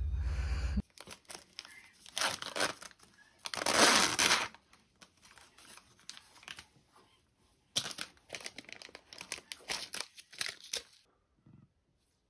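Plastic and foil wrappers of STANDARD Q COVID-19 rapid antigen test kits being handled and torn open. The crinkling comes and goes, with a longer tearing rip about four seconds in and a quick run of crinkles and clicks near the end. A low hum cuts off in the first second.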